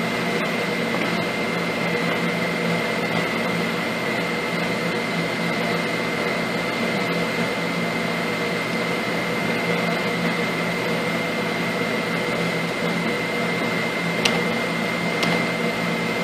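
Thermo-Jarrell Ash 61E ICP-AES spectrometer running with its plasma lit, together with its exhaust ventilation: a steady hiss and hum with a constant high-pitched whine. A couple of faint clicks come near the end.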